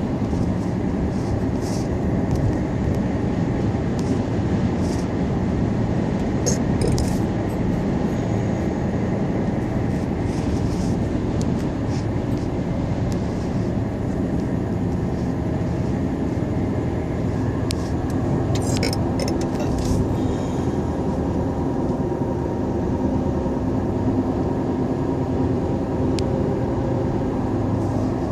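Steady low rumble of a moving vehicle, with a few faint, short clicks here and there.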